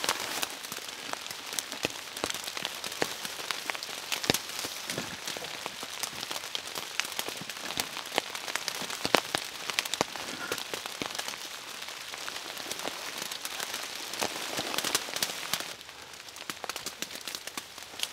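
Steady rain pattering, with many separate drops striking close by. It eases slightly near the end.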